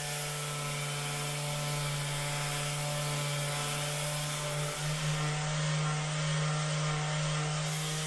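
Rapid release therapy device, a handheld vibration unit, buzzing steadily while pressed against a patient's upper back: one even hum with many overtones, its pitch shifting slightly about five seconds in.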